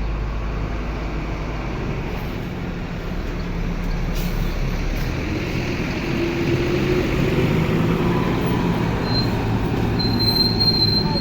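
A large vehicle running, with steady engine and rolling noise that grows a little louder partway through. A thin, high squeal comes in about nine seconds in and returns near the end.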